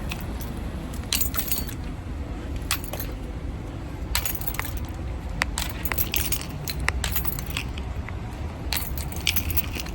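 Light metallic jingling and clinking, scattered irregularly throughout, over a steady low rumble of movement.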